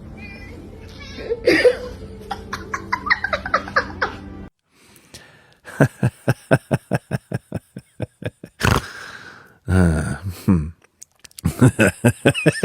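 People laughing hard in fast runs of repeated 'ha-ha' bursts, about four or five a second, in three stretches with short breaks between them.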